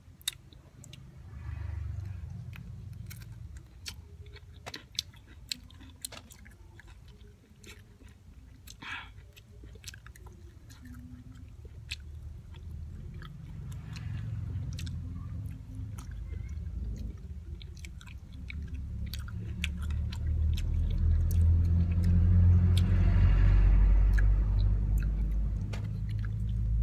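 A person biting into and chewing whole raw calamansi fruits, with many short wet clicks and crunches. A low rumble swells up in the last several seconds and is the loudest sound.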